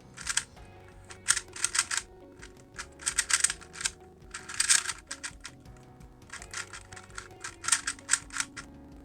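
Plastic 2x2 speed cube being turned fast, rapid clattering clicks of its layers in quick bursts with short pauses between them, over background music.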